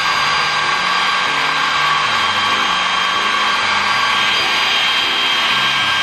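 An old 400-watt handheld hair dryer running steadily at full speed: a rush of blown air with a steady high motor whine. Even at full speed its airflow is very slow.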